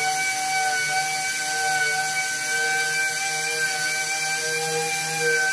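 Random orbital palm sander with a 1000-grit disc running steadily as it scuffs a painted truck tailgate: a constant whine over a high hiss.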